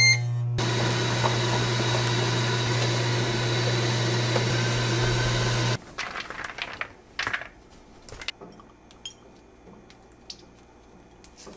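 Ninja Foodi Grill beeping as it is started, then its fan running with a steady hum and rushing air while it preheats for air crisp; this stops abruptly about six seconds in. After that, faint rustling and a few light clicks as a cloth towel is lifted off raw potato sticks on a metal sheet pan.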